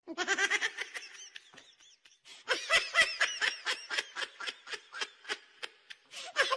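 High-pitched laughter: a quick run of short repeated laughs that breaks off briefly about two seconds in and then resumes.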